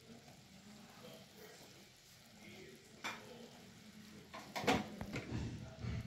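Wooden spatula stirring thick cooked tomato chutney in a kadhai, scraping and knocking against the pan, starting about four and a half seconds in. Before it there is a quiet stretch with a single click about three seconds in.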